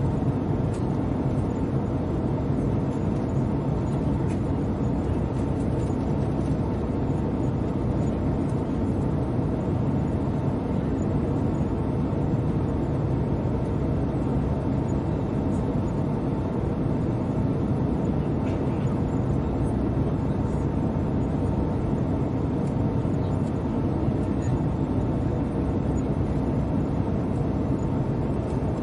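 Airliner cabin noise in flight: a steady, even rumble of engines and rushing air heard from inside the cabin, with a faint steady hum riding on it.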